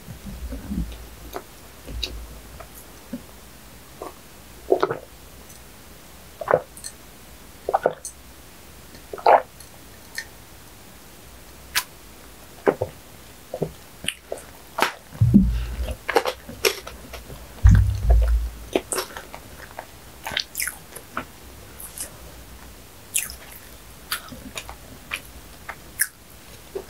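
Close-miked chewing of a mouthful of bread with the mouth closed: scattered moist clicks and smacks. There are two louder low thumps around the middle.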